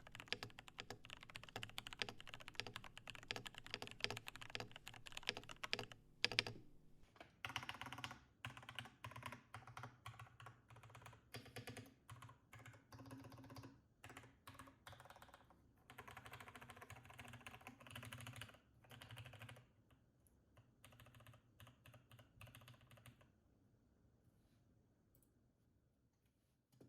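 Typing on a Rama U-80 mechanical keyboard with lubed Cherry MX Clear tactile switches, a brass plate and XMI keycaps: a fast stream of keystrokes, with the loudest key hits about six seconds in. The typing goes on steadily, thins out, and stops a few seconds before the end.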